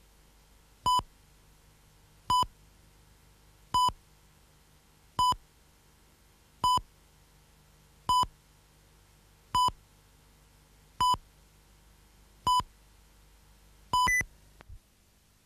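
Video countdown leader beeps: ten short, identical electronic tone beeps evenly spaced about a second and a half apart. The last is longer and ends on a brief higher beep. A faint low hum underneath cuts out just after it.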